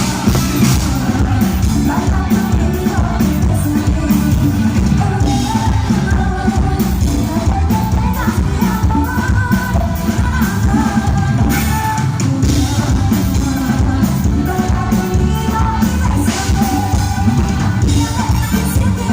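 Loud music with singing over a heavy, steady beat, in a Latin dance style.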